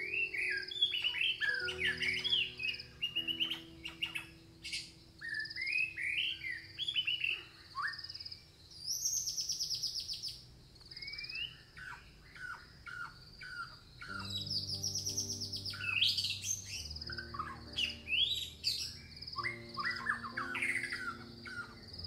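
Songbirds singing varied, warbling phrases over a steady high pulsing cricket chirp, with soft background music of held low notes underneath.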